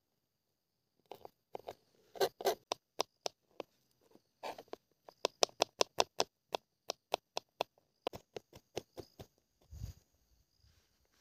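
Knife chopping vegetables on a cutting board: a series of sharp taps, scattered at first, then a quick run of about four a second in the middle before thinning out, with one duller thump near the end.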